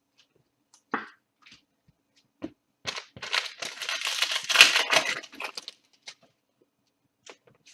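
Foil trading-card pack wrapper being torn open and crinkled, a dense crackling stretch from about three seconds in to about five and a half, with a few light handling clicks before and after.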